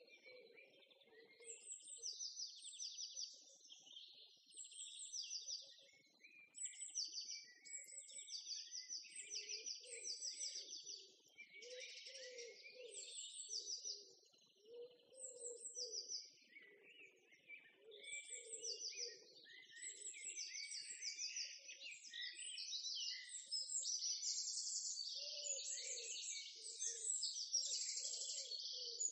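Birdsong: many short, high, rapid trills and chirps repeating throughout, with softer, lower calls underneath.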